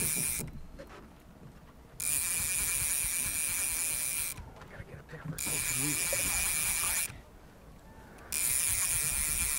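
Fly reel's drag buzzing as a hooked rainbow trout runs and pulls line off the spool. The first buzz stops about half a second in, then three more buzzes of about two seconds each follow, each starting and stopping abruptly as the fish runs and pauses.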